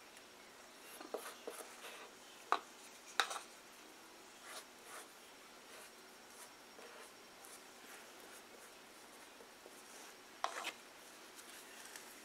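Paintbrush brushing and dabbing glue over paper-covered cardboard, with soft scratchy strokes and a few scattered light taps, the sharpest about two and a half, three and ten and a half seconds in.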